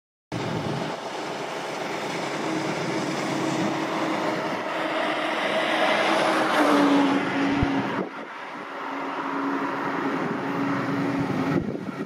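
Fendt 5220 E combine harvester running while cutting wheat: a steady engine and threshing drone with a held hum through it. It is loudest about halfway through and drops off suddenly about eight seconds in.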